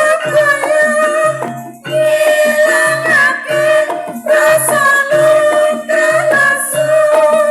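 Banyumasan gamelan music accompanying an ebeg hobby-horse dance: sustained metallic melody tones over a steady low drum beat about twice a second, with a gliding melodic line and a couple of bright cymbal-like splashes in the second half.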